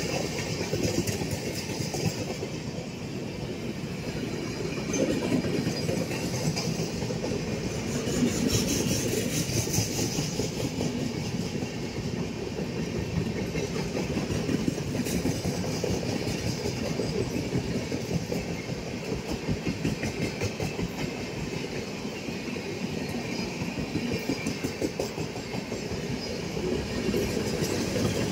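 Passenger express coaches of the Raipur–Secunderabad Superfast Express rolling past, with a steady rumble of wheels on rails and a rapid, continuous clatter.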